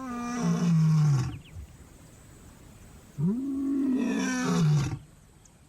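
Male lion roaring territorially, proclaiming his hold on the area: two long roars about three seconds apart, each rising and then falling in pitch.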